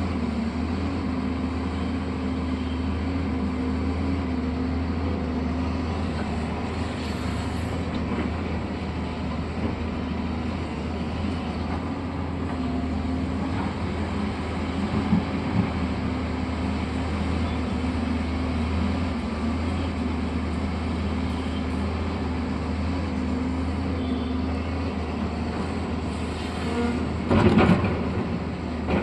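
Heavy construction machine's engine running steadily with a deep hum, with a loud metallic clunk about two seconds before the end.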